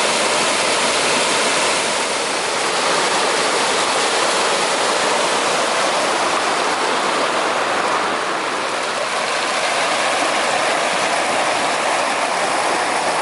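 River waterfall with water rushing steadily and loudly, a dense even hiss of falling water.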